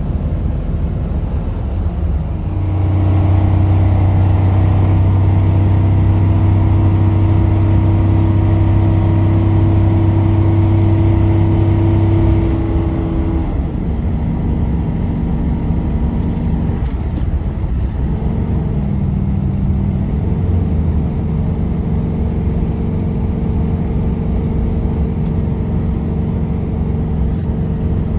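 Engine and road noise inside the cab of a 2014 Sunstar 26HE motorhome on its Ford V10 chassis while driving. A steady engine drone grows louder about two seconds in and holds until about twelve seconds in, then eases off. The engine note changes pitch again shortly before twenty seconds.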